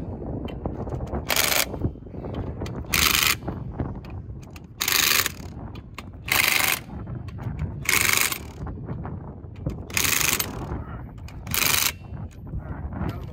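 Cordless impact wrench running lug nuts onto an eight-lug steel truck wheel, in seven short bursts of hammering, one every second and a half to two seconds, one nut after another.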